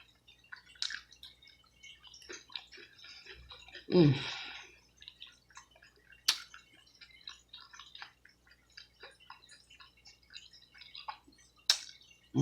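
Close-miked wet eating sounds: chewing, sucking and lip smacking on sauced barbecue pork neck bones, with many small clicks and a few sharper smacks. About four seconds in there is a brief, louder vocal sound that falls in pitch.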